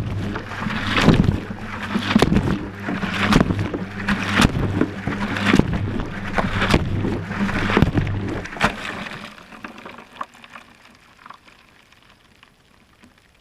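Inside the drum of a Whirlpool washing machine as it turns with water and laundry: the camera in its housing is thrown about, giving irregular knocks and sloshing over a steady hum. About nine seconds in the hum stops and the knocking dies away as the drum slows.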